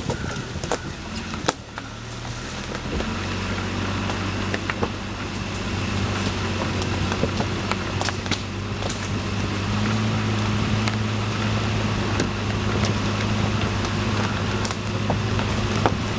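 Jeep Grand Cherokee engine running at low trail speed, a steady low hum that picks up slightly about three seconds in and again around ten seconds. Scattered clicks and knocks sound over it as the SUV rolls over sticks and stones.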